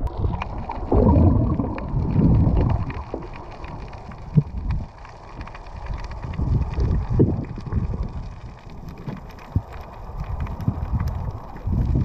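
Water sloshing and rushing against an action camera as it goes from the surface to underwater, heard as uneven muffled low rumbles with scattered clicks and a sharp knock about four seconds in.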